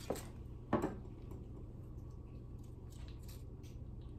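Foil-paper wrapper of a shortening stick crinkling as it is handled and peeled back, with two soft knocks in the first second and faint scattered crinkles later.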